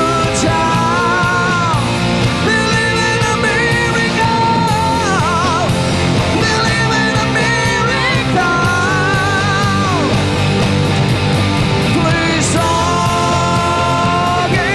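Rock band playing: a male singer sings over electric guitars, keyboard and drums.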